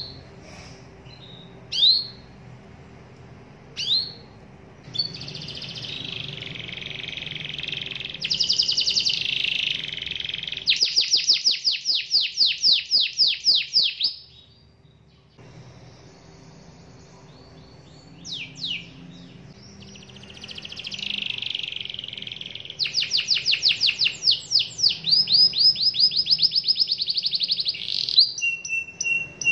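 Domestic canary singing: a few short rising chirps, then long song phrases of warbling and fast trills. It pauses briefly about halfway through and then resumes with another long trilled phrase.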